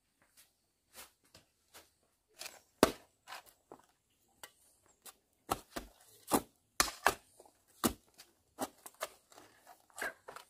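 A series of about twenty sharp knocks at an uneven pace, some much louder than others, the loudest about three seconds in.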